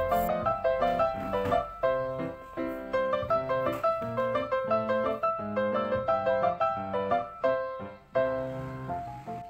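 Background piano music, a run of notes played several a second.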